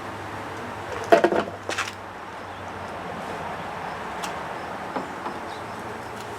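Short clatter of clicks about a second in, then a few light single clicks, from trim fasteners and parts at the front of a Smart car being worked at by hand. A steady low hum runs underneath.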